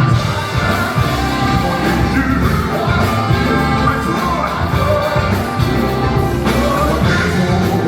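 Live band playing worship music with singing, loud and continuous.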